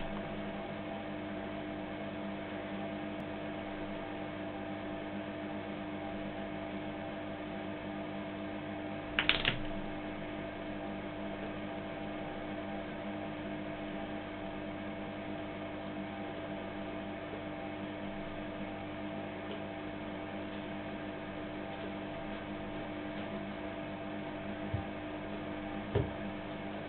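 A steady hum with a faint hiss under it. A sharp knock comes about nine seconds in, and two soft thumps come near the end.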